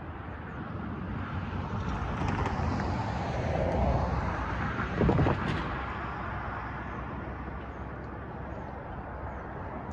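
A pickup truck driving past close by: its tyre and engine noise swells, peaks with a falling pitch about halfway through, with a brief clunk at the loudest moment, then fades into steady traffic noise.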